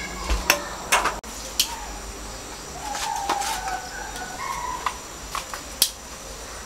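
A handful of sharp knocks and clicks, about six spread out, with short faint bird calls in between.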